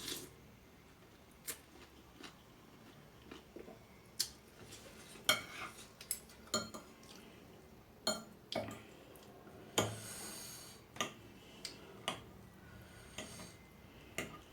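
Someone eating soupy instant noodles close to the microphone: scattered clinks of a utensil against the bowl and wet eating sounds, with a longer slurp about ten seconds in.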